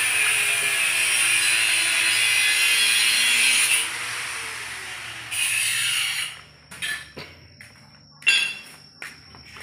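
A power tool running with a loud, hissing whir, cutting out about four seconds in, running again for about a second and winding down with a falling pitch. After it stops come scattered knocks and clicks, the loudest a sharp knock a little after eight seconds.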